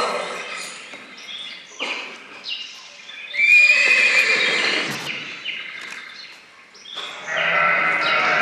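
Whinnying animal calls: one about three and a half seconds in and a longer, louder stretch near the end, with a few short knocks between.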